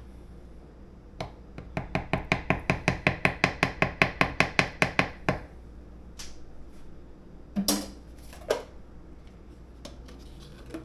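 A quick, even run of about twenty taps, some six a second, lasting about four seconds, as a plastic Greek yogurt tub is knocked to get the yogurt out. A couple of seconds later come two single knocks.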